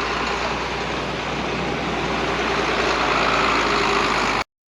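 Farm tractor engine running steadily at idle, with a dense mechanical noise over a steady low hum, cutting off abruptly near the end.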